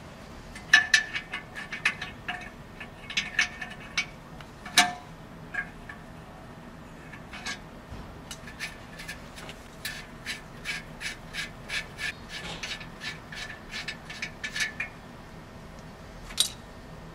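Light metallic clicks and taps in irregular runs of a few a second, from hand and tool work on the exhaust pipe joint and clamp of a Hyundai Porter 2 truck. One louder click comes near the end.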